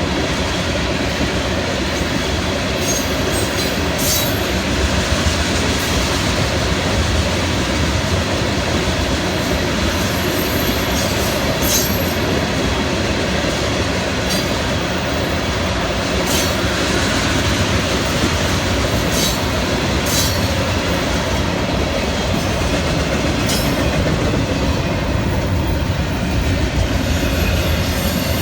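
Florida East Coast Railway mixed freight train's cars rolling past: a steady rumble of steel wheels on rail, with brief high-pitched wheel squeals every few seconds.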